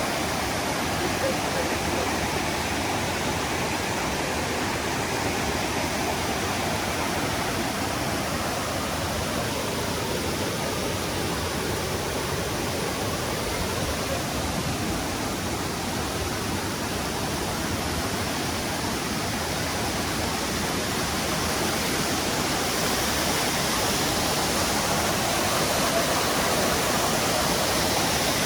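Floodwater rushing steadily, a continuous noise of fast-running water that grows slightly louder near the end.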